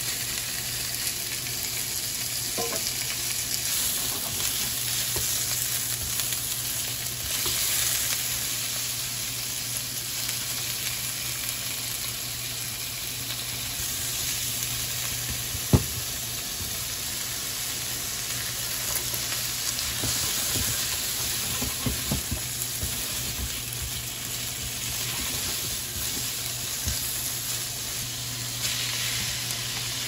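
Sliced pork belly sizzling in oil in a frying pan, stirred with a plastic spatula, with a single sharp knock about halfway through.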